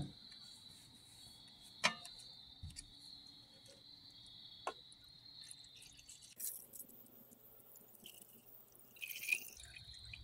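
Liquid decanted from a glass beaker into a plastic bucket: a soft splashing trickle starts about six seconds in and runs for about three seconds, leaving the precipitated gold powder in the beaker. Earlier, two light clicks, as of glassware being handled.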